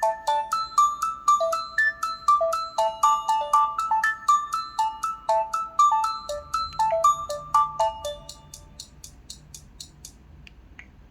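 Jazz alarm tone of an LG Wine Smart phone played through its speaker: a melody of quick, short plinking notes, about four a second, that thins out and fades away about eight or nine seconds in.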